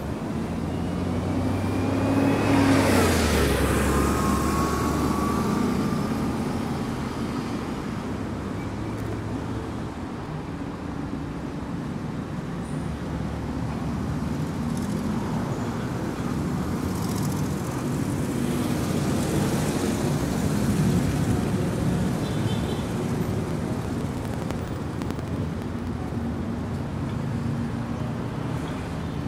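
City road traffic running steadily. About three seconds in, a vehicle passes close and its engine note falls in pitch as it goes by; the traffic swells again later.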